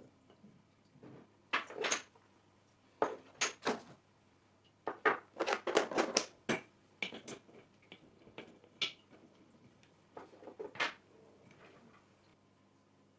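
Hands setting up a small paludarium: irregular taps, clicks and scrapes of items being handled and set down, coming in small clusters with the busiest run around the middle, over a faint low hum.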